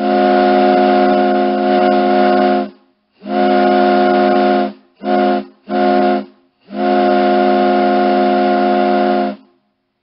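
Ship's horn sounding five blasts, each a steady chord of several low tones: a long blast of about three seconds, a shorter one, two quick short ones, then another long one.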